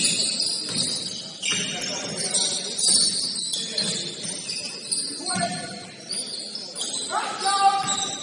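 Basketball sneakers squeaking on the court: many short, high-pitched squeaks that overlap and keep coming.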